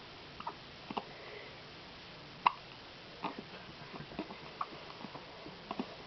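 Newborn twin babies hiccupping at the same time: about a dozen short, sharp hiccups at uneven intervals, the loudest about two and a half seconds in.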